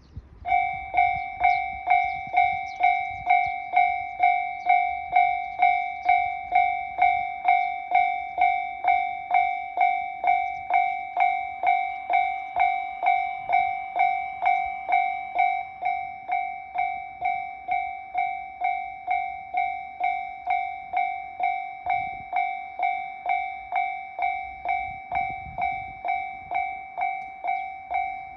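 Japanese railway level-crossing electronic alarm of the high-pitched TA type, starting suddenly and then ringing in an even, repeating 'kan-kan' pattern of somewhat under two strikes a second, signalling that a train is approaching.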